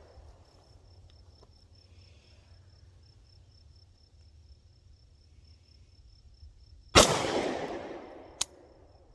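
A single shot from a prototype pistol firing a 124-grain full metal jacket round about seven seconds in, its report dying away over a second or so, followed by a short sharp click. The spent case extracted, but the next round failed to feed.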